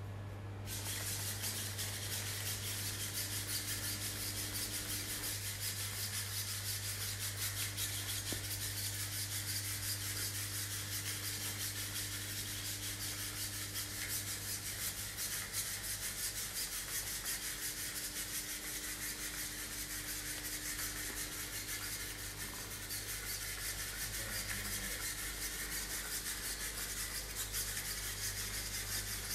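Mini Pupper quadruped robot walking on a hard floor: its servo-driven legs and small feet make a steady, fast, scratchy rattle of fine ticks, starting about a second in, over a low steady hum.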